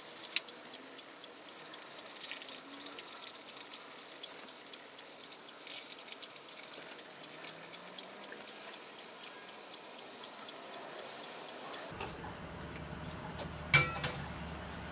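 Hot water poured slowly from a gooseneck kettle onto coffee grounds in pour-over filter cones: a faint, steady pouring and trickling. Near the end come a couple of sharp metallic knocks as the kettle is set down on the stove grate.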